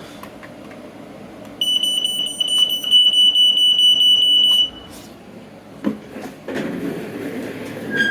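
Smoke alarm sounding during a push-button test: a loud, steady, high-pitched alarm tone starts about a second and a half in, holds for about three seconds and cuts off abruptly.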